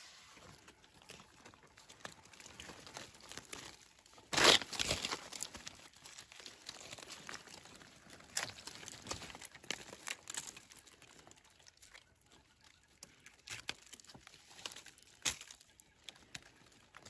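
Irregular rustling and crackling of dry forest litter and plant material being handled while picking mushrooms, with a sharp loud crunch about four and a half seconds in and a few smaller snaps later.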